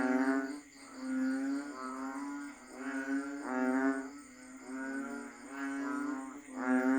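Banded bullfrogs (Asian painted frogs) calling in chorus: overlapping low, droning, moo-like calls, each under a second long, about one a second, over a faint steady high buzz.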